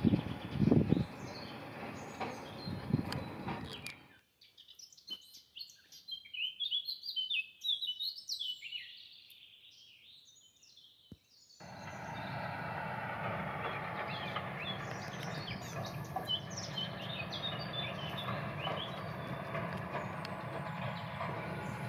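Small birds chirping repeatedly over a background rumble of noise. The rumble drops out for several seconds in the middle, leaving the chirps nearly alone.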